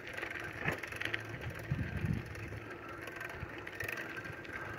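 A bicycle rolling over rough ground, with a steady rattle and scattered clicks from its drivetrain.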